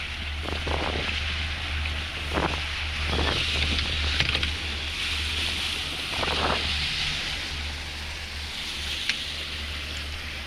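Fishing boat's engine running steadily at trolling speed, a low drone under the rush of water along the hull and wind on the microphone, with a few brief bumps along the way.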